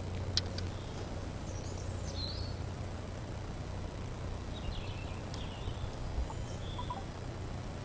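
Woodland ambience: a steady low rumble with a few short, scattered bird chirps, and a sharp click or two about half a second in.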